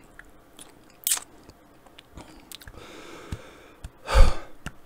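A person chewing a mouthful of hot-sauced chicken wing close to a microphone, with small mouth clicks and short breaths. About four seconds in comes a loud puff of breath into the mic, blowing out against the heat of the sauce.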